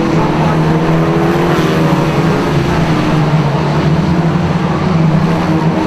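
Lightning Rods oval-track saloon race cars running around the circuit together, a loud, steady mix of several engines.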